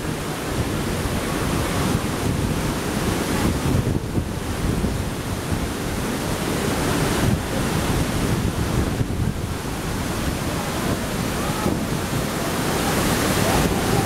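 Typhoon wind gusting across the microphone over a steady rushing noise of rain and wind.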